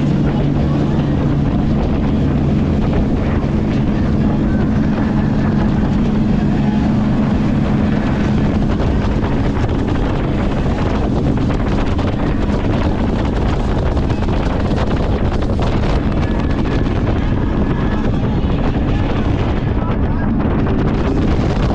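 Jet boat engine running with a steady low drone, over rushing water and wind buffeting the microphone; the drone is clearest in the first several seconds.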